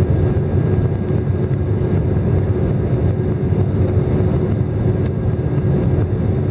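Airbus A319 jet engines at climb power, heard inside the cabin by the wing: a loud, steady rumble with a steady hum over it.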